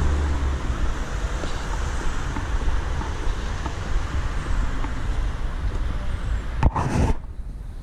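Road traffic passing close by: a steady rush of engines and tyres, with a vehicle's low engine hum at the start and a short, loud burst of noise near the end.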